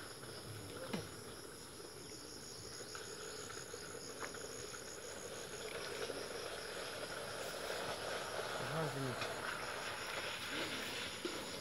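A steady, high-pitched chorus of insects, with brief faint voices in the background near the end.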